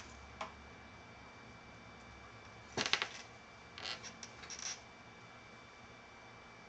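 Light clicks and clatters of small hard objects being handled: one click near the start, a louder cluster about three seconds in, and a few more about a second later.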